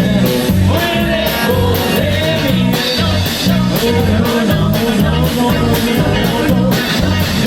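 Rockabilly band playing live, with a steady drum beat and a moving bass line.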